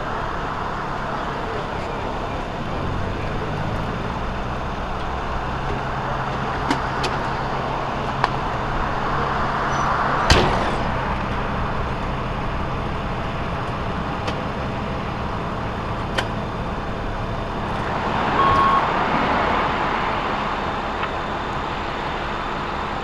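Road traffic going by, with two vehicles swelling past about ten and nineteen seconds in, over the steady low hum of an idling engine. There is one sharp knock about ten seconds in.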